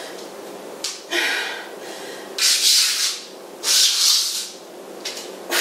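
Exercise sliders rubbing across the floor under the hands during plank 'wax on, wax off' circles: a series of short swishes, about one every second and a quarter.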